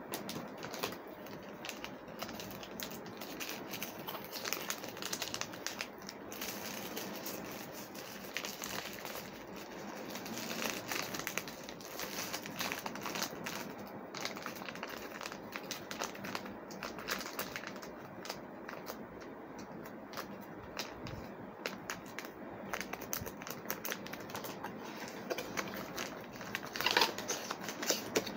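Plastic packaging crinkling and crackling in the hands as an item is unwrapped, irregular and continuous, with a louder burst of crackles near the end.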